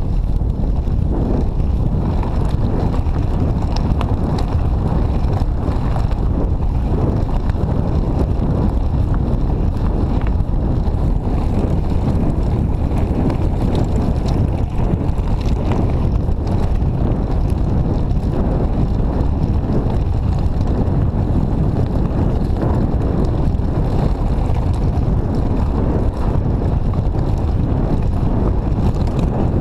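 Wind buffeting the microphone as a mountain bike rolls fast down a gravel double-track, with a steady low rumble from the tyres and scattered small clicks and rattles from the bike over stones.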